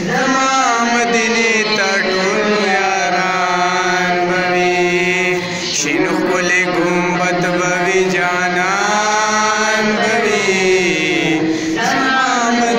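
A young man's solo voice chanting a naat in long, wavering held notes, with a short break for breath about five and a half seconds in.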